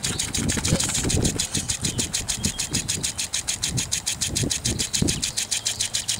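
Lawn sprinkler spraying water and ticking rapidly and evenly, about eight ticks a second.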